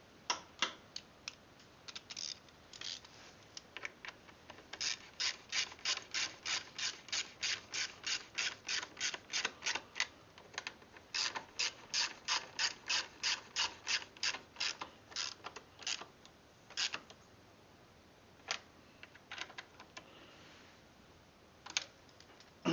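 Socket ratchet clicking as nuts are run down with a 10 mm socket, in two long steady runs of about three to four clicks a second with a few scattered clicks before and after.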